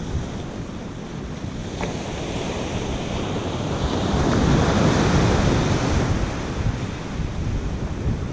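Ocean surf on a sandy beach: small waves breaking and washing up the shore, swelling to a louder wash about four seconds in.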